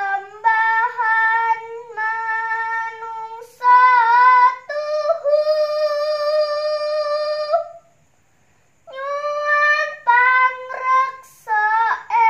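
A young woman singing Javanese macapat solo and unaccompanied, in long, high, held notes with small wavering ornaments. She pauses for breath about eight seconds in, then carries on.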